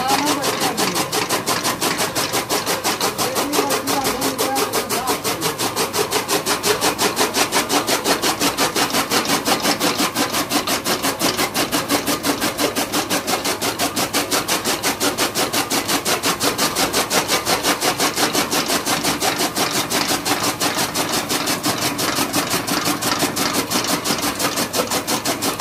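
A machine running with a steady, even chugging pulse of about four to five beats a second, unchanged throughout.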